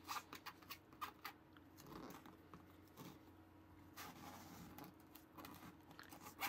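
Faint crunching and scratching of kinetic sand as a plastic mold is pressed into it and worked loose, with a few small clicks, over a low steady hum.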